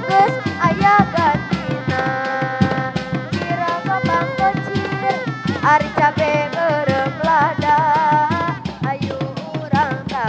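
Reog Dog Dog music: dogdog drums, single-headed hand drums of the Sundanese reog, beaten in a fast, even rhythm, with a wavering melody held over them.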